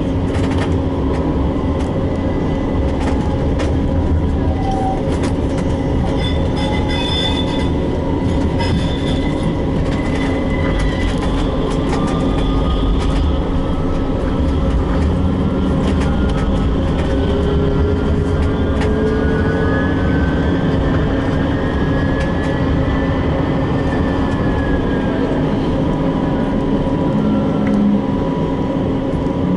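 Istanbul T1 tram running, heard from inside the car: a steady, loud rumble of the wheels on the rails. Thin high squeals gliding up and down in pitch come in from about twelve seconds in.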